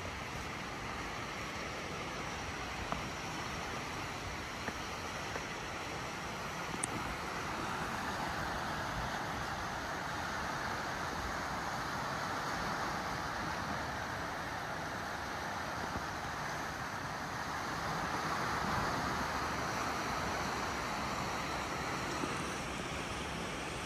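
Sea waves washing in against the shore, a steady rush that swells and eases twice, with a few faint ticks.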